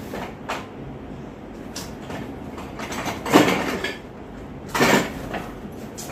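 Cardboard box and packaging scraping and rustling as the parts of a flat-packed garment stand are slid out of it, with two louder scrapes about three and five seconds in.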